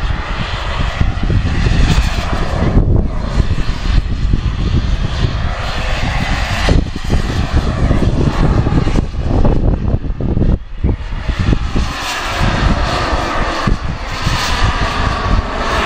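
Radio-controlled model jet flying overhead: a continuous rushing engine whine that swells and fades as it passes, over an uneven low rumble.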